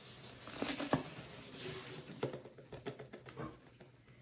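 A few light taps and rustles from handling ingredients and kitchen containers, irregular and fading out toward the end.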